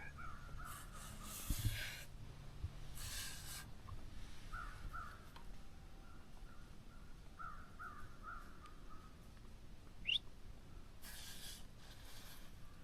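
Faint crows cawing, in short runs of two to four calls a few seconds apart. A few brief rustles and one short rising chirp near the end are heard as well.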